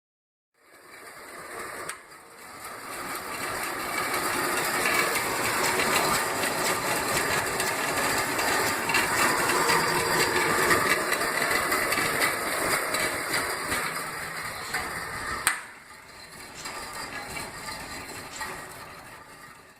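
Wood-cutting band saw converted for metal, running slowed down with its blade grinding through metal stock. The sound builds over the first few seconds, holds steady, then drops with a sharp click about fifteen seconds in and runs on quieter.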